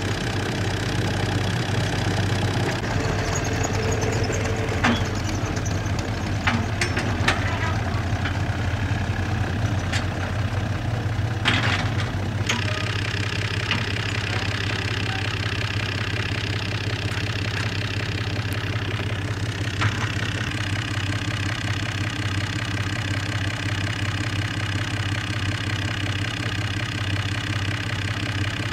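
Tractor diesel engine idling steadily, with a few sharp clicks and knocks between about 4 and 13 seconds in.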